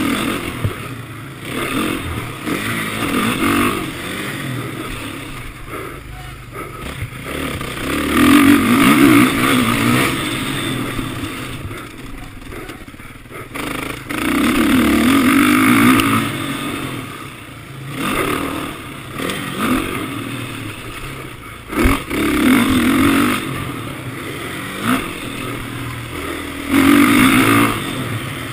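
Suzuki RM-Z 450 motocross bike's single-cylinder four-stroke engine revving hard in surges of a second or two, about six times, and backing off in between.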